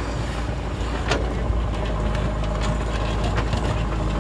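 JCB backhoe loader's diesel engine running steadily with a heavy low rumble, broken by a few sharp knocks.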